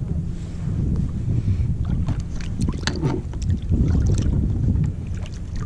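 Wind buffeting the microphone and water moving around a kayak, with a run of clicks and knocks from about two seconds in.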